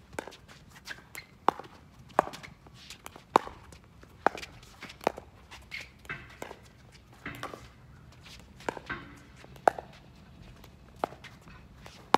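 Pickleball paddles striking a plastic pickleball in a long doubles rally: sharp hollow pocks about once a second, a dozen or so in all, with players' footsteps on the hard court between hits.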